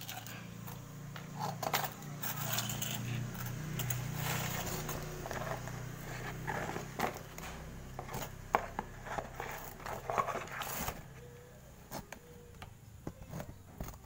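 Handling noise of multimeter test probes and wire leads: scattered clicks, rattles and scrapes against a refrigerator's plastic panel. A low steady hum runs underneath and stops about eleven seconds in.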